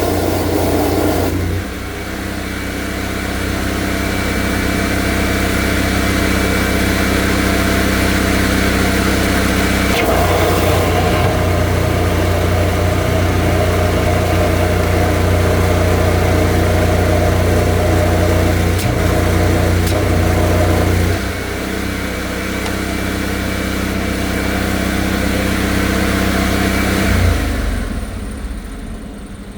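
High-pressure drain jetter's engine running steadily, its note shifting a few times as the load changes, then dropping lower near the end.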